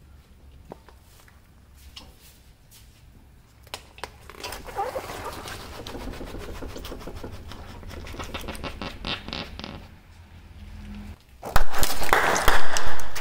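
Car tyre rolling over a melon filled with rice grains, crushing it with a long run of dense crunching and crackling. Near the end, yogurt cups burst under the tyre with a much louder splattering burst.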